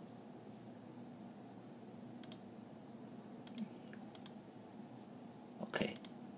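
A few sparse computer mouse clicks over a faint steady hum, with one louder knock near the end.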